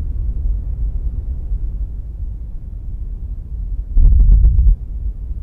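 Kilpatrick Audio Phenol analog synthesizer playing a deep bass drone that dies down at the start, then a loud throbbing low swell with rapid ticking pulses about four seconds in, lasting under a second.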